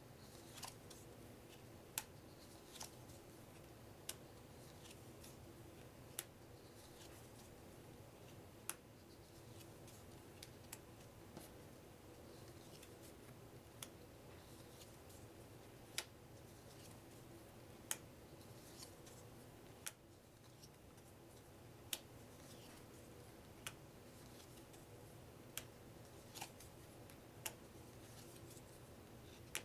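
Playing cards being handled and set down one at a time, a sharp card tap about every two seconds with soft rustling between, over a faint steady hum.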